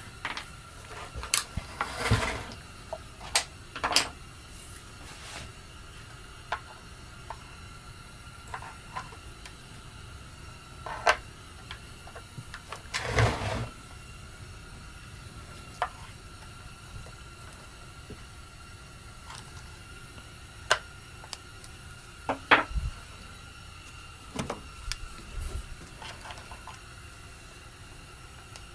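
Scattered clicks, taps and knocks of hand tools and chainsaw parts being handled during disassembly, with a longer scraping rustle about 13 seconds in. A faint steady high hum runs underneath.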